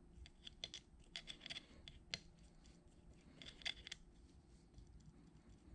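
Small brush scraping and dabbing grease onto the metal cover plate of a coolant pump: faint scratchy strokes with light ticks, in short clusters about a second in and again past the middle.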